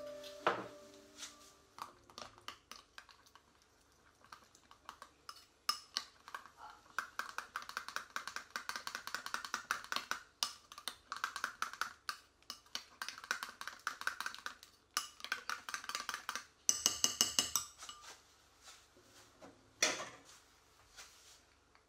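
Metal spoon stirring sauce in a glass bowl, clinking quickly and fairly evenly against the glass. Near the end comes a short run of louder, ringing clinks, then one more sharp clink.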